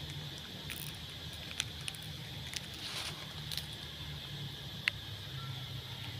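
Steady high-pitched drone of forest insects, with a low hum underneath and a few light clicks and rustles.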